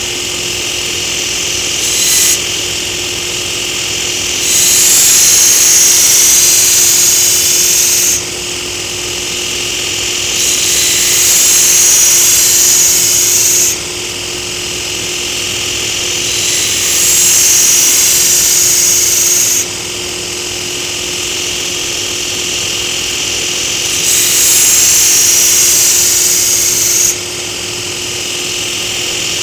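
Belt grinder running with a steady motor hum while a Takeda nakiri blade is pressed to the belt in four passes of about three to four seconds each. Each pass adds a loud high hiss of the steel being ground as the blade is thinned.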